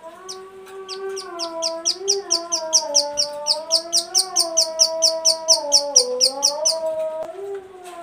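Female plain prinia (ciblek sawah) giving its rapid clicking call: a long run of sharp, high 'klik' notes, about six a second, stopping about a second before the end. This is the call of a female in breeding condition, used as a lure to call males. Under it runs a continuous lower, slowly wavering tone.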